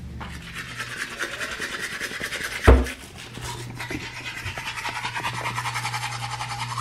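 Manual toothbrush scrubbing teeth in quick back-and-forth strokes, about five a second, growing stronger towards the end. A single sharp knock sounds a little under three seconds in.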